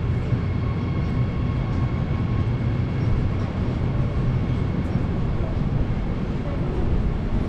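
Freight train of tank wagons rolling through a station yard: a steady low rumble, with a faint high whine over it for the first few seconds.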